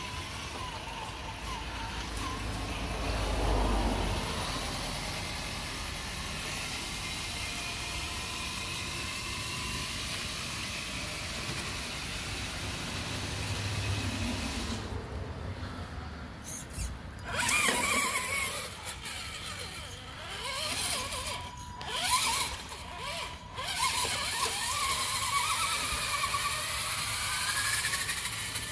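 Radio-controlled crawler truck's electric motor and gears whining, the pitch rising and falling with the throttle, inside a corrugated metal culvert pipe. The whine comes in short bursts through the second half.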